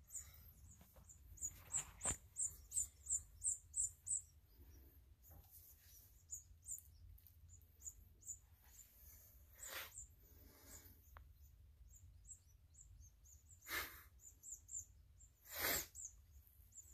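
Sparrow nestlings chirping with short, high-pitched peeps, a quick run of about three a second in the first few seconds, then scattered; these are young birds begging while being hand-fed. A few brief rustles of cloth break in, the loudest near the end.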